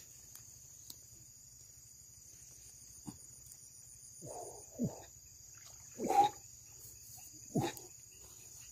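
Crickets and other night insects trilling steadily. Over them come four short, low, rough sounds in the second half, the third the loudest.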